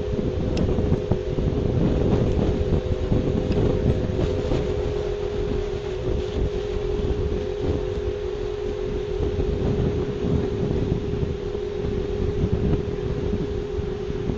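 Wind buffeting an outdoor webcam microphone in a gusty low rumble, over a steady two-note hum that holds unchanged throughout.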